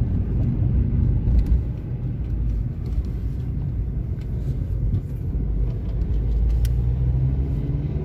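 Car driving on a town road: a steady low rumble of engine and tyre noise, heard from inside the car.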